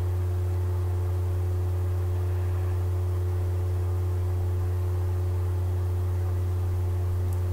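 A steady low hum with a few fainter, higher steady tones over it, unchanging in level and pitch.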